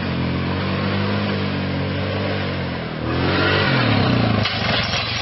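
ATV quad engine running at a steady pitch, then revving, its pitch sliding up and down about three seconds in, before settling into a fast pulsing beat near the end.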